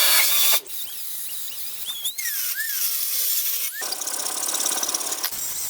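A power tool running in spells: it stops briefly, then starts again about four seconds in, with short high squeals gliding up and down over the noise.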